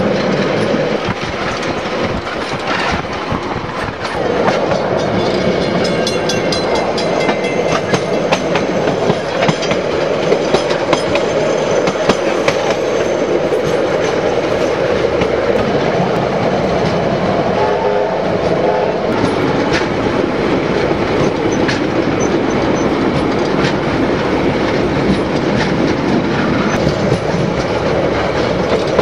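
Narrow-gauge passenger train hauled by steam locomotive JA 1271 rolling steadily along the track, its wheels clicking over the rail joints.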